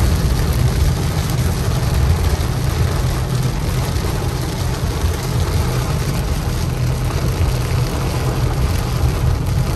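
Inside a car driving in heavy rain: a steady low rumble of engine and tyres on the wet road under an even hiss of rain on the car.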